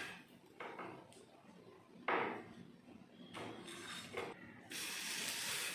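A few short scrapes and knocks of a spatula lifting a cooked adai off a hot tawa, then, near the end, a steady sizzling hiss starts suddenly.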